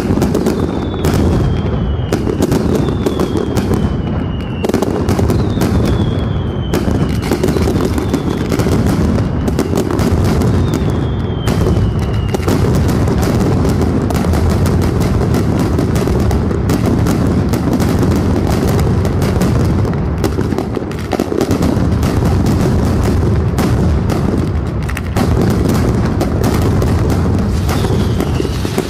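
Mascletà: a continuous, dense barrage of ground-level firecrackers banging in very rapid succession. Whistling fireworks with a falling pitch cut through every couple of seconds in the first half and again near the end.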